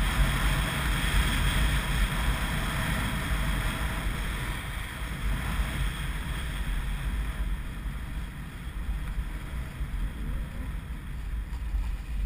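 Wind buffeting the microphone of a camera carried down a ski slope, a heavy low rumble, with the hiss of sliding over packed, groomed snow. The hiss fades about halfway through, leaving mostly the low wind rumble.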